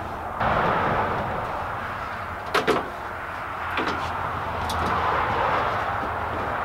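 A few short clicks and knocks of hands working the plastic bezel around a Mazda Miata's raised pop-up headlight, a quick double click about two and a half seconds in, over steady background noise.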